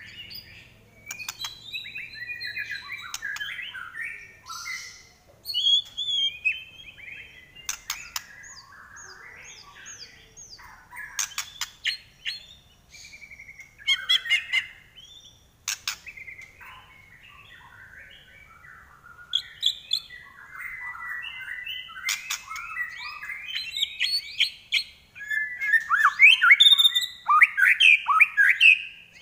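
White-rumped shama (murai batu) singing a long, varied run of whistled and chattering phrases with sharp clicks between them, loudest near the end.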